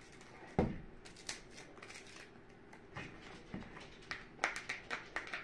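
Foil drink pouch crinkling as it is handled and a straw is pushed into it: faint, scattered short crackles, coming thicker near the end.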